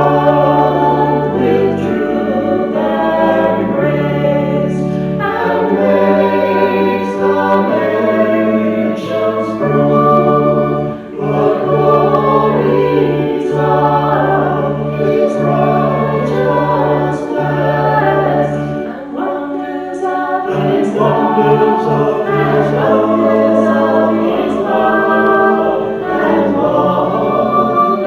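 Choir singing, with held low bass notes underneath that change every second or two.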